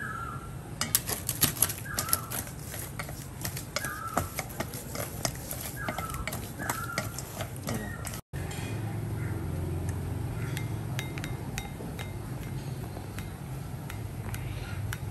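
Kitchen utensils clinking against dishes, with short, repeated bird chirps in the background. After a brief cut about halfway, a steady low hum with a few lighter clinks.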